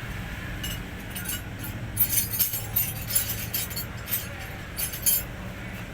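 Light metallic clinking and jingling, a quick run of small metal knocks between about two and five seconds in, over a steady low hum.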